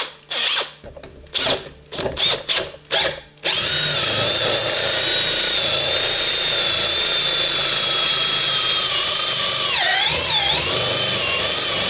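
Power tool with a flap disc sharpening an auger bit: several short bursts, then running steadily with a high whine from about a third of the way in. Its pitch dips briefly twice near the end, as if it is loaded down against the steel.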